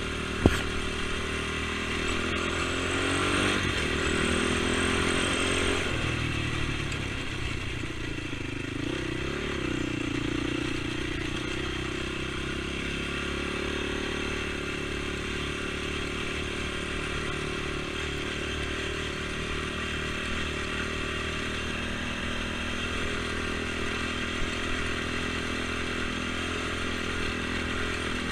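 ATV engine running while riding, its revs rising and easing off a few times. A single sharp knock sounds about half a second in.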